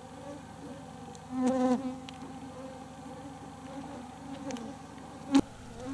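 Mosquitoes buzzing steadily around the microphone, one passing close about a second and a half in. A sharp click sounds about five seconds in.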